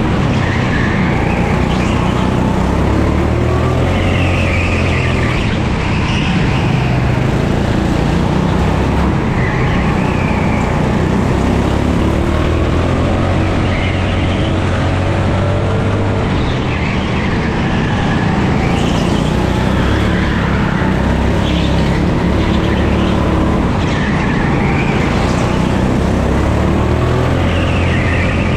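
Onboard sound of a 9 hp Pilotkart rental go-kart engine running hard at racing speed, its revs rising and falling again and again through the corners of the lap.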